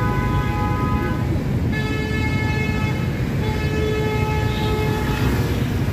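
Motorbike and car traffic rumbling, with a held vehicle horn sounding until about a second and a half in. A second, lower horn is then held for about four seconds.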